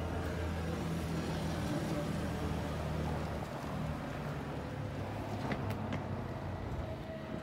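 A vehicle engine idling with a steady low hum. Two light clicks come about five and a half and six seconds in.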